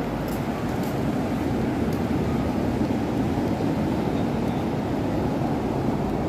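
Steady, even rumble of ocean surf breaking on a wide, flat beach, mixed with wind blowing on the microphone.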